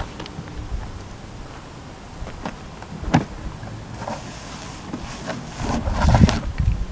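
Handling noise from a Kolpin hard plastic gun case on a motorcycle: a few scattered knocks and clicks from the case, the loudest about three seconds in, then a longer run of scraping and knocking near the end as a long gun is drawn out of the case.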